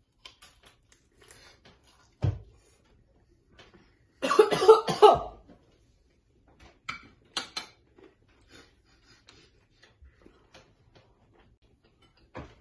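A boy coughs and splutters in one short, loud burst about four seconds in, with a mouthful of pizza. Around it are faint chewing and small clicks at the table, and a dull thump comes about two seconds in.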